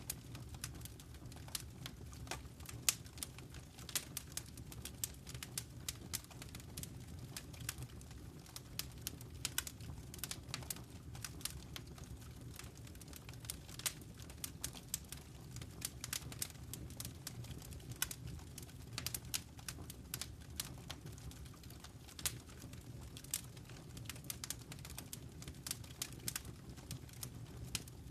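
Wood fire crackling in a fireplace: many sharp, irregular pops and snaps over a steady low rumble of burning.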